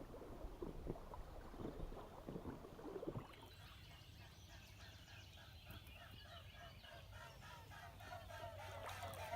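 Waterfowl calling in a rapid, even series of about three calls a second, starting about three seconds in.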